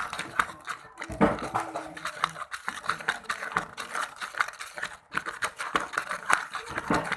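Spoon stirring and scraping a thick mix of kinetic sand and glue in a container: an irregular run of small clicks and scrapes.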